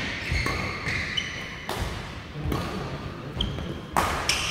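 Badminton rally: several sharp racket-on-shuttlecock hits about a second apart, with short high squeaks of court shoes on the floor between them.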